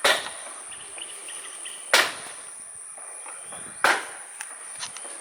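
Steady high-pitched insect chorus, with three loud sharp knocks evenly spaced about two seconds apart, like hammering or chopping.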